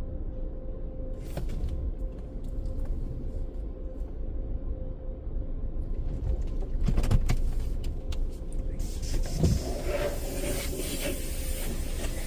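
Low steady rumble of an idling car heard from inside the cabin, with a few knocks near the middle. A hissing spray starts about nine seconds in and keeps going.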